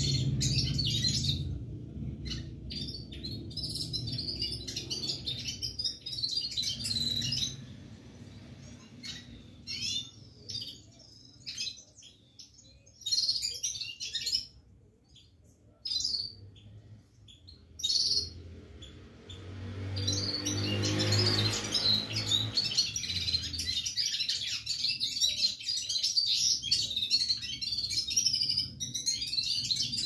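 Red-fronted serin (fire-fronted serin) singing: a fast, high, twittering song in long unbroken runs. Through the middle it breaks into short phrases with pauses.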